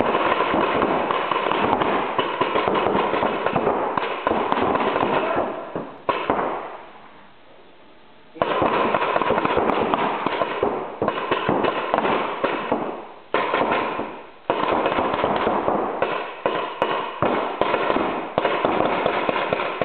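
Reball markers firing rapid volleys of shots, as a dense stream of pops in long runs. The firing breaks off for about two seconds about six seconds in, and briefly twice more later.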